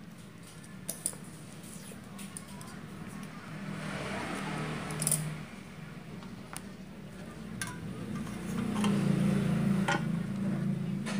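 Handling noise of small parts and wire being worked by hand: scattered light clicks and rustles, over a low steady hum that grows louder near the end.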